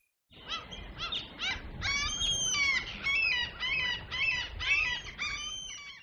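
Birds chirping: a quick run of many repeated, high, rising-and-falling chirps that starts a moment in and cuts off abruptly just before the end. It is a dawn birdsong effect marking daybreak.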